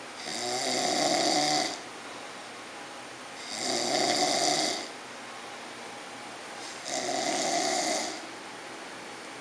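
Loud snoring: three long, rasping snores at an even pace, about three seconds apart, with quieter breathing between them.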